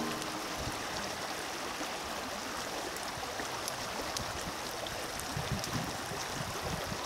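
Grassland burn-off fire burning: a steady rushing noise sprinkled with many small crackles and pops.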